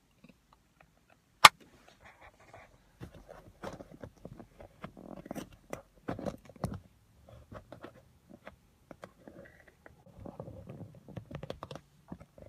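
A sharp knock about a second and a half in as a camera on a car-interior mount drops, followed by a run of irregular clicks, bumps and rubbing as the fallen camera is knocked about and handled.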